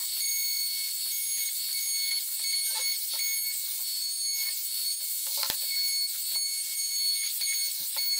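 Compact trim router running at high speed with a high-pitched whine over a cutting hiss as its bit is run along the edges of a curved wooden workpiece. Two sharp knocks, about five and a half seconds in and near the end, as the workpiece is handled on the bench.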